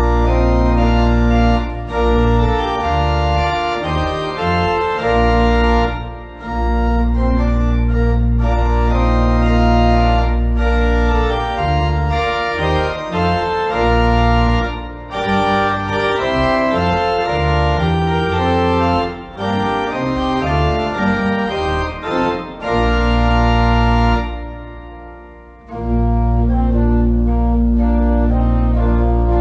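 Church organ playing, with long sustained low bass notes under changing chords. About 24 s in the playing breaks off briefly and the sound dies away before it resumes.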